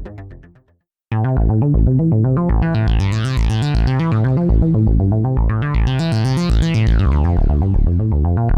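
Modular synthesizer: a fading sequence dies away in the first second, then after a short gap a fast, pulsing synth sequence starts abruptly. A resonant filter sweeps up and down over it about every three seconds.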